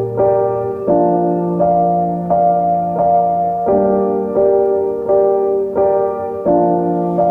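Background music: a keyboard playing sustained chords, struck at an even pace of roughly one every 0.7 seconds.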